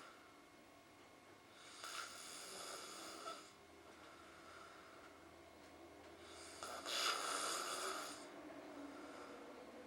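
A person snoring in his sleep: two long snore breaths about five seconds apart, the second one louder.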